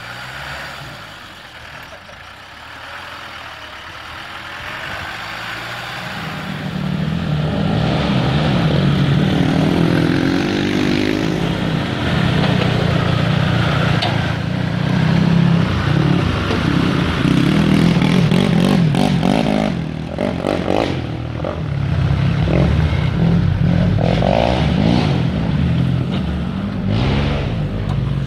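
Land Rover Defender 110's Td5 five-cylinder turbodiesel revving and labouring as the truck crawls through deep clay ruts, rising and falling with the throttle. It is quieter for the first several seconds, then louder, with a few knocks in the last third.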